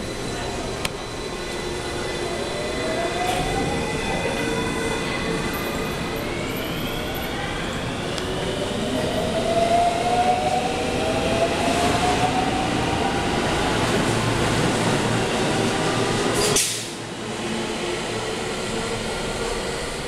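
JR West commuter electric train pulling away from the platform and accelerating past, its traction motors whining in rising pitch over building wheel-on-rail noise. About three quarters of the way in, the sound cuts abruptly to a steadier, quieter station background.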